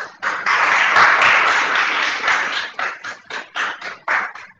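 Audience applauding: a dense burst of clapping that thins out into a few scattered claps over the last couple of seconds.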